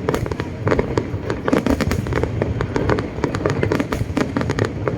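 Fireworks display: a rapid, irregular barrage of bangs and crackles overlapping one another over a continuous low rumble.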